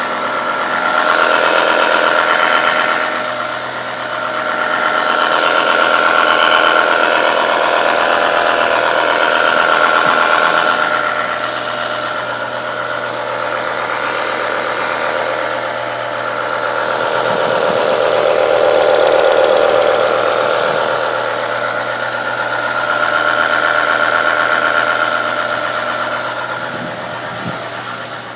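BMW E60 M5's S85 V10 engine idling cold with a diesel-like clatter. The sound swells and fades several times while the engine speed stays steady.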